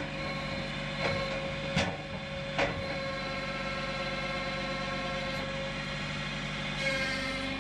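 An engine running steadily, with a few light knocks about one, two and two and a half seconds in.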